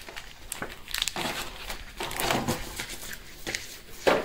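Foil Pokémon booster packs crinkling as they are handled, in a string of short rustles.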